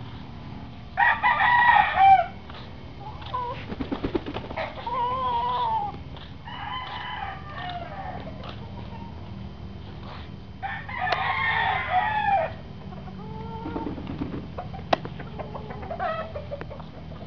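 Roosters crowing in turn. Two loud crows come about a second in and about eleven seconds in, with fainter crows between them and a few short clucks.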